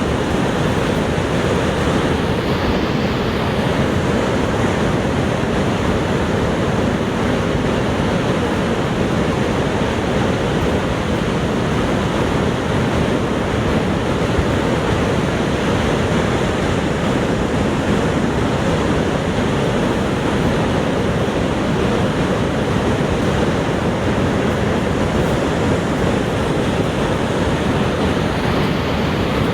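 Steady, deep rushing roar of Niagara Falls: massive volumes of water pouring over the falls and crashing below.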